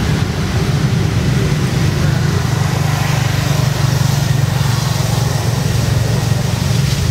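A steady low rumble at an even level throughout, with a faint hiss above it and no clear pitch.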